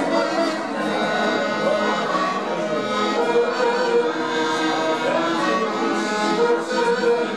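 Instrumental background music with held, sustained notes.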